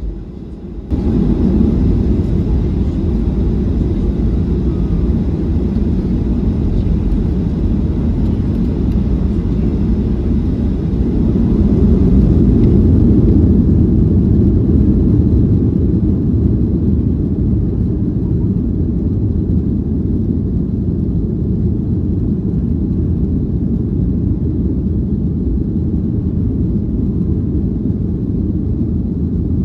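Boeing 737-800 jet engines and rushing air heard from inside the economy cabin: a steady, loud low rumble that starts suddenly about a second in and swells slightly toward the middle.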